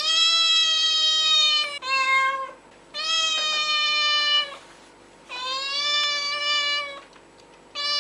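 Cat meowing: a run of long meows with short gaps between them, each holding a fairly steady pitch and dipping slightly at its end. Four meows, with a fifth starting right at the end.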